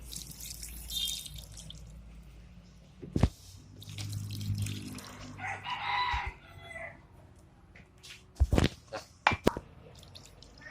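A rooster crowing once in the background, about halfway through, with a few sharp knocks: one about three seconds in and a quick cluster near the end.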